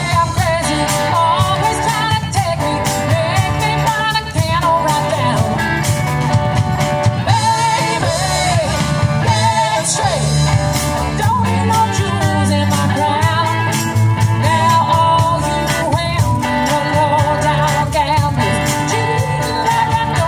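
A small live band playing through PA speakers: electric guitars, bass and drum kit, with a singer's voice over a steady beat.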